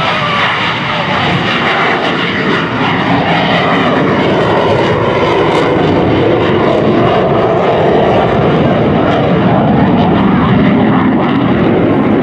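Twin General Electric F404 turbofan jet engines of Blue Angels F/A-18 Hornets in a loud, continuous jet roar as the jets take off and climb away. The roar's tone sweeps slowly as the jets pass.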